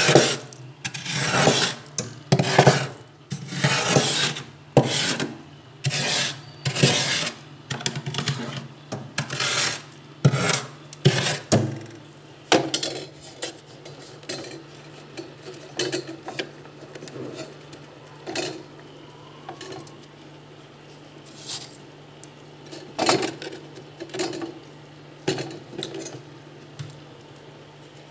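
Frost being scraped off a freezer's walls and shelf with a metal spoon, crunching and rasping in quick repeated strokes for about the first twelve seconds, then slower, fainter scrapes with gaps between them. A steady low hum runs underneath.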